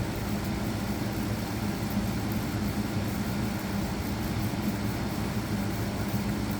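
Steady low hum over faint background hiss, unchanging throughout.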